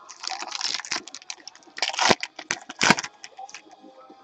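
A Gypsy Queen baseball card pack wrapper being torn open and crumpled by hand: a run of sharp crackling for about three seconds, loudest near two and three seconds in.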